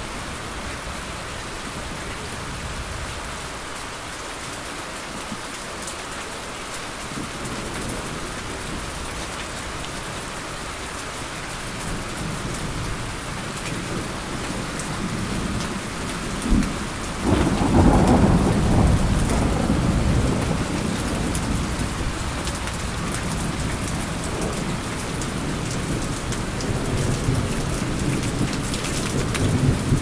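Steady rain mixed with the whoosh of a ceiling fan. Thunder rumbles in low from about halfway, breaks loudest about seventeen seconds in, then rolls on for several seconds.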